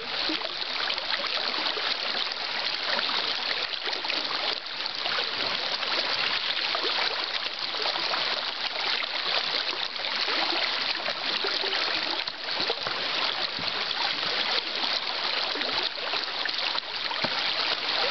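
Shallow river water rushing over a stony riffle and fallen logs: a steady, even rush of moving water.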